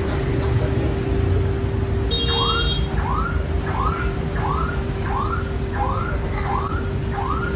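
An electronic alarm sounds from about two seconds in: a short high beep, then a run of short rising-and-falling whoops repeating about every 0.6 seconds. Underneath is a steady low rumble of street traffic and a constant hum.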